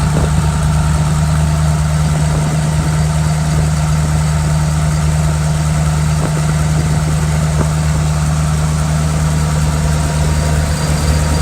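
Ford irrigation engine running steadily at a constant speed, a loud even hum with no change in pitch.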